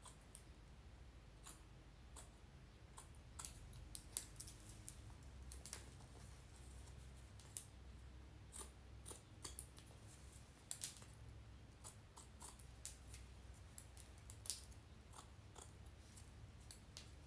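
Small scissors making faint, irregular snips as they cut the protective lace layer away from underneath a wig closure, close along the stitching.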